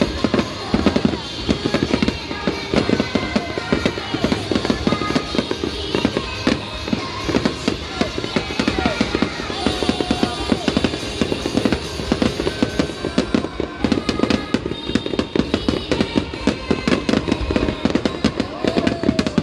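Aerial fireworks bursting in quick succession, a dense run of bangs and crackles, with music playing underneath.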